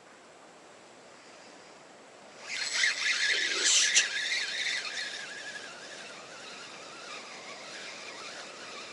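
Spinning reel winding in line, a rough whirring squeal that starts suddenly about two and a half seconds in, is loudest for a couple of seconds, then eases off.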